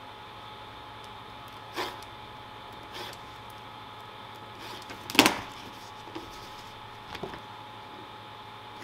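Craft knife slicing leather against a steel ruler on a cutting mat: a few short scratchy cuts, with one much louder knock a little past the middle, over a steady background hum.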